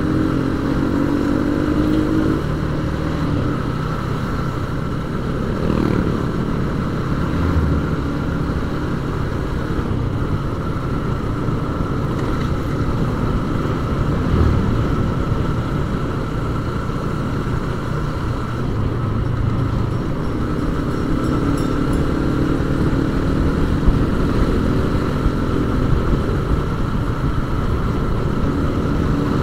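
Yamaha Vixion single-cylinder four-stroke motorcycle engine running under way, its pitch rising with the throttle near the start and again about two-thirds through, over a steady low road and wind rumble.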